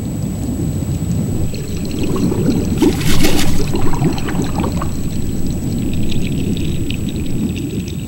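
Underwater ambience: a steady low rumbling water noise, with a brief louder rushing burst about three seconds in and faint scattered ticks.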